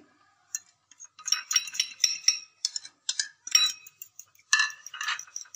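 Metal fork clinking and scraping against a ceramic plate and a glass bowl in quick, irregular runs of clicks, as spices are pushed off the plate into raw eggs.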